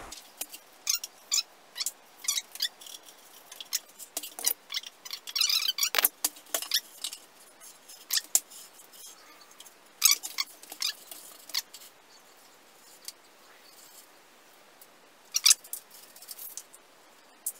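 Razor knife cutting through the carpet over the openings of a carpeted subwoofer box, and the cut-out piece being pulled loose: irregular short, scratchy rasps and tearing, most of them in the first twelve seconds. About fifteen seconds in, a short rip of blue tape being peeled off the carpet.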